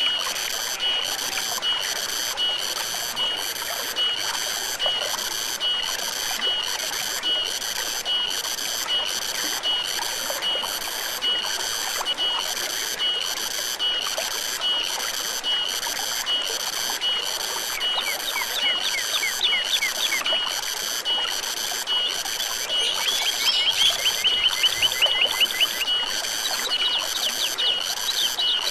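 Forest stream flowing steadily, with a high, pulsing animal call repeating evenly about one to two times a second. A rapid trill of quick falling notes comes twice in the second half, the louder one near the end.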